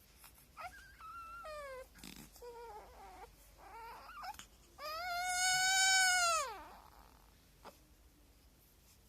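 Newborn baby crying: a few short whimpering cries that fall in pitch, then one long, louder wail about five seconds in that trails off downward.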